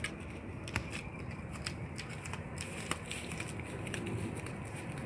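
Bubble wrap crinkling and crackling as a chrome roof-rack crossbar is lifted out of it, with a string of sharp clicks over the first three seconds.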